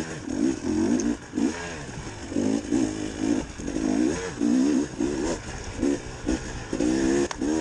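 2019 KTM 300 XC-W TPI two-stroke single-cylinder dirt bike engine revving up and down in quick short bursts as the throttle is worked on a tight woods trail. There are a few sharp knocks from the bike over the rough ground.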